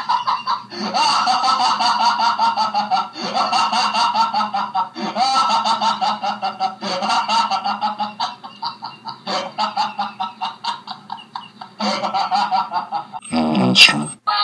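A cartoon sloth's very slow, drawn-out laugh: about seven long honking 'haaa' sounds in a row, each a second or two long. Near the end comes a short, loud distorted blast.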